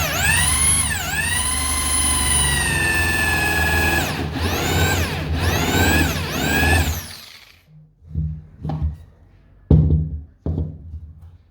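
Electric power tool motor running, its pitch sweeping down and up with the trigger, holding steady for a few seconds, then revving in short bursts and stopping about seven seconds in. A few sharp knocks follow near the end.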